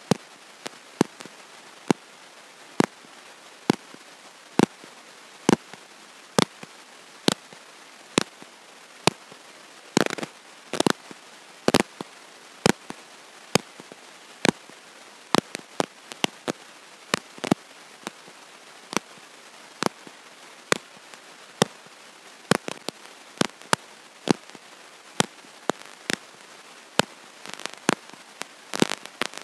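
Sharp clicks and pops, a bit more than one a second and uneven, with small clusters about ten seconds in and near the end, over a faint steady hiss. No voice is heard; the crackle sounds like a recording fault.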